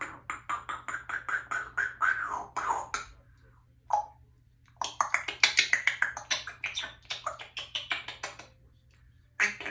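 Congo African grey parrot making two long runs of rapid clicking, popping noises, about six or seven pops a second, with a single short note between them.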